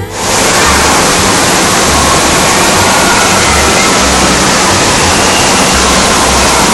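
Loud, steady rush of falling water that starts abruptly and holds an even level, with a faint low pulsing underneath.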